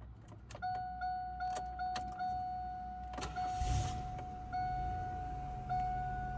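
Dashboard warning chime dinging repeatedly after a few clicks of the ignition being switched on. About three and a half seconds in, the Pontiac Grand Prix GTP's supercharged 3.8-litre V6 cranks briefly and starts, then settles into a steady idle under the chimes.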